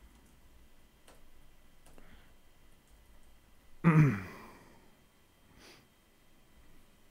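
A person's sigh about four seconds in: a short, breathy voiced exhale that falls in pitch and fades. Before it come a few faint keyboard clicks while text is typed.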